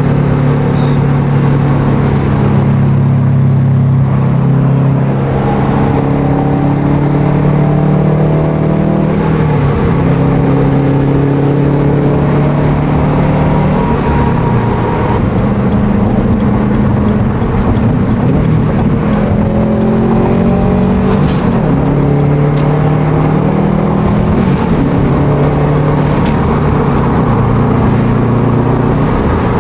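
Subaru WRX STI's turbocharged 2.5-litre flat-four accelerating hard through the gears, its pitch climbing and then dropping back several times, with a loud exhaust.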